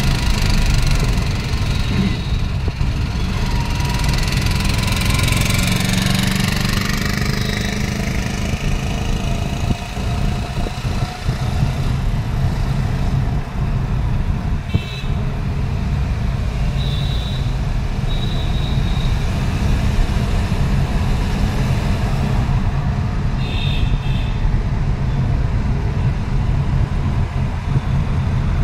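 Steady low engine rumble and road noise of a vehicle driving through city traffic. Several short vehicle horn toots sound about halfway through and again a few seconds later.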